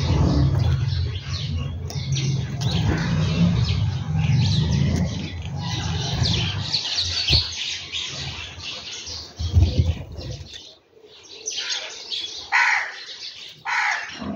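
House sparrows chirping busily and continuously, with a steady low rumble underneath that stops about ten seconds in; near the end a few louder single chirps stand out.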